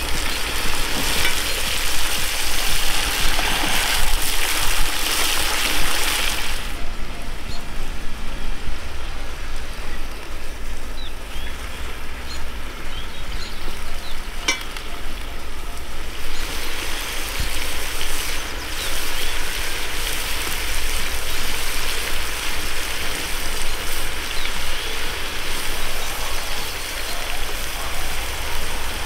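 Chunks of meat sizzling as they fry in a cast-iron cauldron over a wood fire, a steady hiss that drops back for a while midway and then grows loud again. A metal skimmer stirs the meat around the middle, adding a few light scrapes and clicks.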